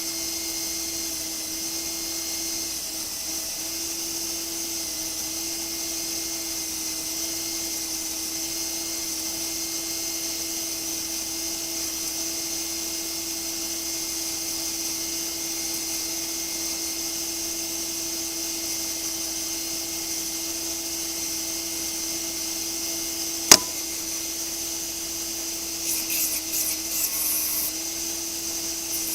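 Electric sander running steadily while rounding the corners of a wooden frame. There is a single sharp click a little over 23 seconds in, and a brief rattling near the end.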